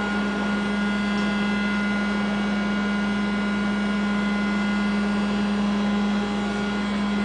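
Live electronic music from homemade electronic instruments processed in Pure Data: a steady low drone with a hiss of noise over it, holding level without a beat.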